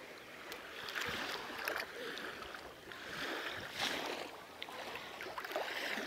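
Small sea waves washing up over wet sand at the water's edge: a soft hiss that swells and fades a few times.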